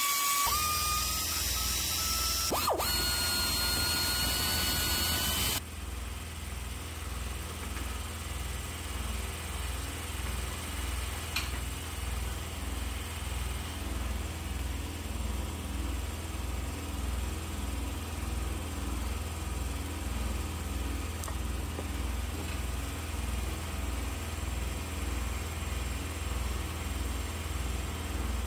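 Cordless power ratchet running on the thermostat housing bolts of a Chevy Cruze 1.4 engine, its motor whine rising in pitch as a bolt spins loose, with a brief stop about two and a half seconds in before it runs again. It stops about five and a half seconds in, leaving a steady low pulsing hum.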